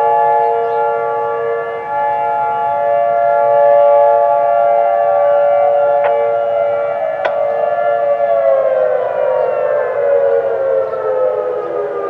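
Outdoor warning siren sounding during a scheduled test, holding a steady chord of several tones, then winding down with its pitch falling steadily over the second half. Two sharp clicks are heard around the middle.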